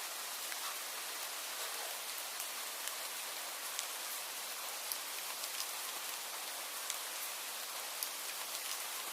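Steady rain falling: an even hiss with scattered sharp taps of individual drops landing.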